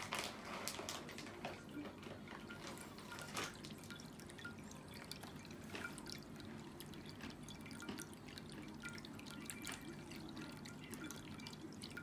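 Electric pet drinking fountain running, its water trickling from the spouts and dripping into the bowl in faint irregular drips over a steady low hum.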